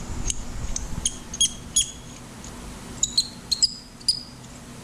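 A threaded part being screwed into a freshly tapped stainless steel bung, giving a series of short, high-pitched squeaks at irregular intervals as the threads turn. It is the typical squeak of stainless threads rubbing.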